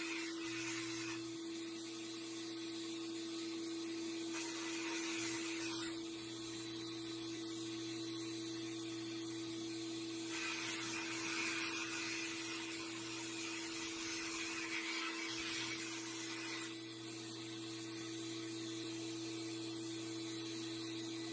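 Sandblast cabinet's blast gun hissing as abrasive media strips rust from small pressed-steel toy truck parts, swelling louder in several stretches as the spray is directed at the metal. A steady hum runs underneath.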